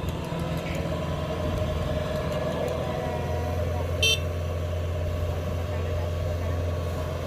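Engine running steadily with a low, even hum, with one short, sharp, high-pitched ringing clink about four seconds in.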